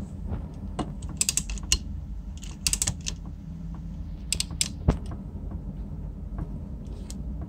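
Quick clusters of sharp metallic clicks and ratchet-like clatter from a hand tool working on the copper tubing of a refrigerator compressor, with a single louder click near the middle, over a steady low hum.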